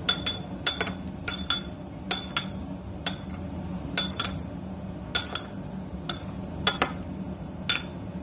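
A white ceramic spoon clinks against the side of a ceramic bowl, one or two ringing clinks a second, as it stirs sugar into the liquid around the squash balls.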